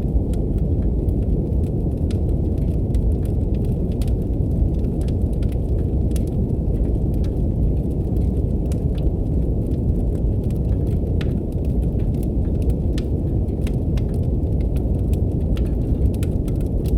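Brown noise, a steady deep rumbling hiss, mixed with a crackling fireplace: many sharp little pops and snaps of burning wood scattered irregularly over it.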